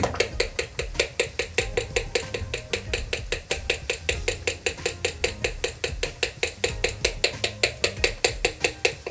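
A metal fork beating an egg into thick pancake batter in a ceramic bowl, its tines clicking against the bowl in a fast, even rhythm of about six strokes a second.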